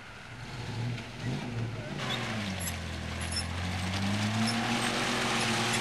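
Engine of a military off-road vehicle working its way over a rough dirt course, getting louder as it comes closer, its pitch rising slowly in the second half.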